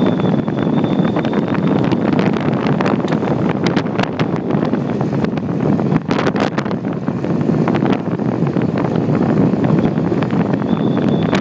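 Wind buffeting a phone microphone while riding an e-bike at speed: a loud steady rush with frequent crackles. A thin, high steady whine sounds through it for the first couple of seconds and again near the end.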